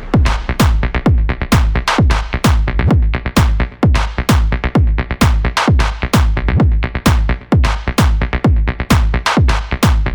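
Electronic dance music with a steady, fast four-on-the-floor beat and heavy bass.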